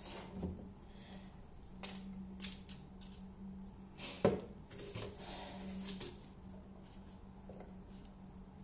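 Kitchen knife cutting a green apple on a plastic cutting board: a few scattered taps and clicks of the blade meeting the board, the sharpest about four seconds in. A faint steady low hum runs underneath.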